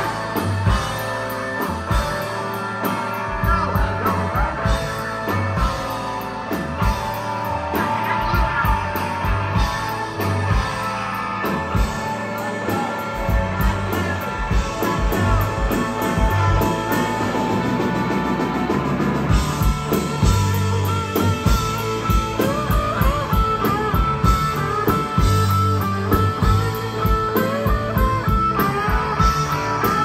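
Live rock band playing loud: electric guitars, bass guitar and drum kit, with a lead electric guitar playing bending notes over the band.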